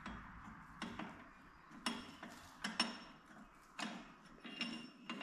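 Irregular metallic clinks and knocks of a wrench and socket on the primary clutch bolt of a Polaris RZR XP 1000 as the bolt is worked loose. There are about eight of them, a second or less apart, and several ring briefly.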